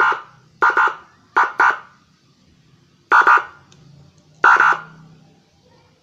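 Six-sound electronic siren module sounding short, loud horn-like blasts through a TOA ZH-610S horn loudspeaker: about six brief blasts at uneven gaps, two of them in quick succession about a second and a half in.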